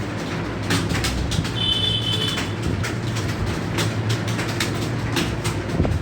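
Many computer keyboards typed on at once during a timed typing test: a dense, irregular clatter of keystrokes over a steady low hum. A brief high tone sounds about two seconds in.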